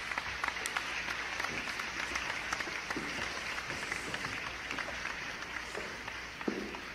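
Audience applauding, a steady patter of many hands clapping that eases off near the end.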